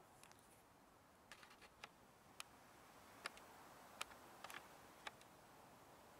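Near silence with a faint hiss, broken by a dozen or so faint, sharp clicks at irregular intervals, most of them after the first second.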